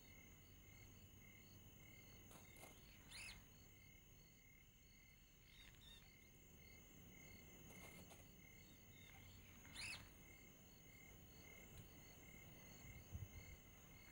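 Faint chorus of chirping insects, an even high-pitched pulse that keeps going throughout, with two brief louder chirps about three and ten seconds in.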